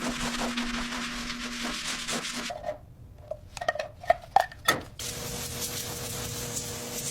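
Steady rubbing, rasping noise with a faint hum, broken about three seconds in by roughly two seconds of sharp knocks and clicks, then steady rubbing again.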